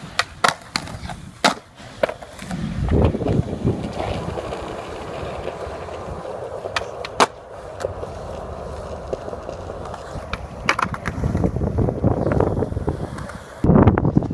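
Skateboard wheels rolling over concrete, broken by sharp clacks of the board hitting the ground and obstacles, several close together in the first couple of seconds. Near the end the sound jumps abruptly to a louder rumble.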